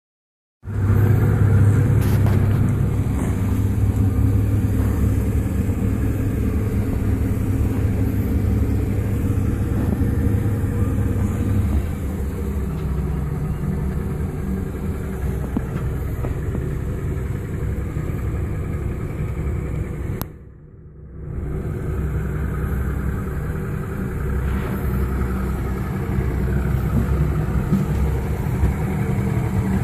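Twin Evinrude outboard motors running steadily at low speed, a continuous low engine drone whose note shifts about twelve seconds in. The sound briefly drops away for about a second around two-thirds of the way through.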